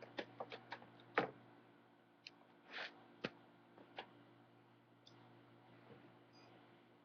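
Scattered small clicks and taps: a quick run of about six in the first second, a louder one just after a second in, then a few more spread out, with a short rustle near the three-second mark.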